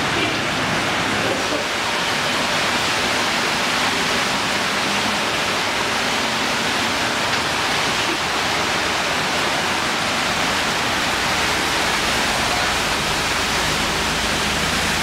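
Steady rushing hiss of rain and of car tyres driving through deep floodwater on a flooded street, with a faint hum of passing traffic underneath.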